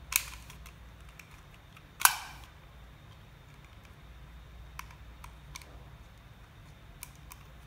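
Hard plastic clicks from a Syma X5SW quadcopter being handled while its camera module is fitted: a sharp click just after the start, a louder snap about two seconds in, then a few faint ticks.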